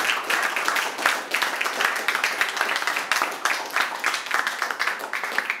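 A small audience applauding, many hands clapping at once at a steady level.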